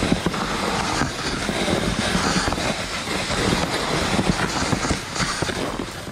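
Continuous scraping, rattling rumble of a sled being dragged over packed snow, heard from on the sled itself, with snowshoe footsteps crunching ahead.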